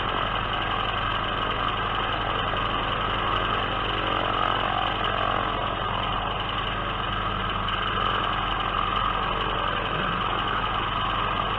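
Biplane engine droning steadily in flight, with wind rushing over the microphone.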